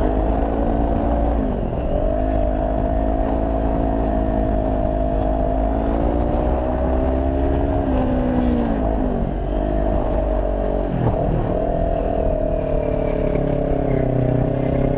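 Kawasaki Ninja sport bike's engine under way, its note rising and falling with the throttle. It dips and picks up again about two seconds in and again around eight seconds, then drops low about eleven seconds in before climbing again.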